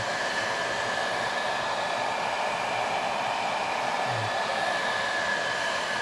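Hot-air blower running steadily, warming ammonia-soaked balsa so it can be bent to shape: an even rushing noise with a thin, steady whine.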